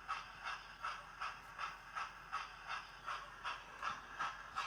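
Hornby TTS sound decoder in a model A4 steam locomotive playing steam exhaust chuffs through its small speaker, a steady beat of about three chuffs a second while the model runs.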